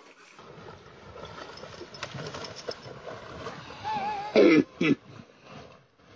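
Water sloshing and splashing as a dog wades through shallow water. About four and a half seconds in come two loud, wavering cries that each drop steeply in pitch.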